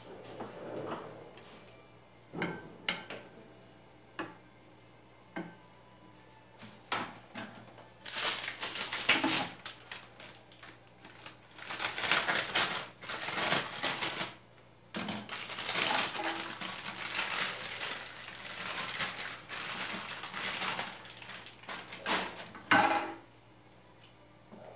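Plastic bag crinkling and crackling in two long spells as chicken pieces are handled and pulled out of it, with scattered clicks and knocks of a plastic spoon and chicken against a plastic dish.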